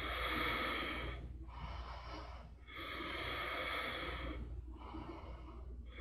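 A woman breathing audibly in slow, even breaths, louder and softer breaths alternating, about two full breaths in and out.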